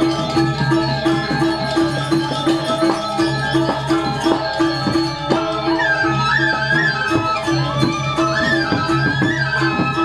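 Balinese gamelan playing bebarongan, the Barong dance music: metallophones ring in a steady repeating pulse over scattered drum strokes. A high, wavering melody line enters about six seconds in.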